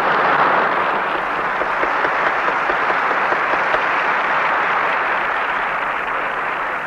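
Audience clapping steadily after a stage number, slowly dying away.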